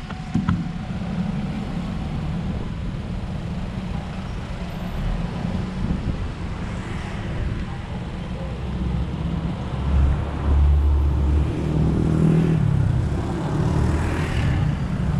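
Road traffic in slow city stop-and-go: a steady low rumble of engines and tyres. It grows louder in the second half, where a nearby engine's note rises and falls.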